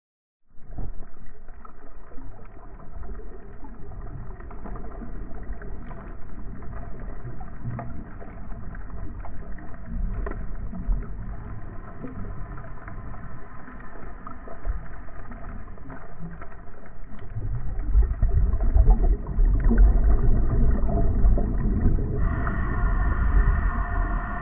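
Boat motor running steadily, a hum with several steady tones over water and low rumble; the rumble grows heavier in the last several seconds, and a brighter higher-pitched tone joins near the end.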